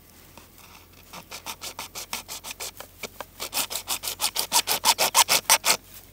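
A hand tool scraping back and forth in quick, even strokes, about five a second. They start faint about a second in and grow much louder from about three and a half seconds in.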